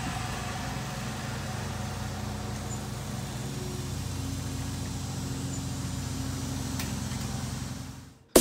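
Steady low hum of outdoor background noise, fading out just before the end.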